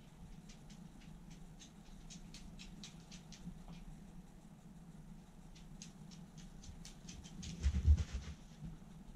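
A miniature dachshund's claws clicking on a wooden floor, about four clicks a second, in two runs of steps, then a heavy thump about eight seconds in as it jumps onto a leather sofa. A steady low hum runs underneath.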